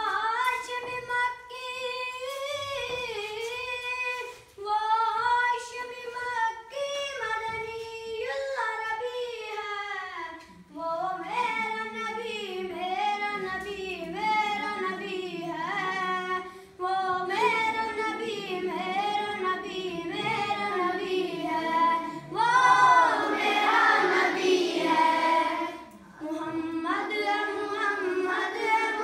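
A boy singing a naat, an Urdu devotional song, unaccompanied in a melodic chant. About ten seconds in, other voices join in lower under his line, and the singing swells louder for a few seconds near the end.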